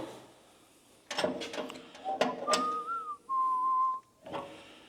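A person whistling: a short note that wavers up and down, then a longer, steadier, slightly lower note. A few sharp clicks and knocks come just before it.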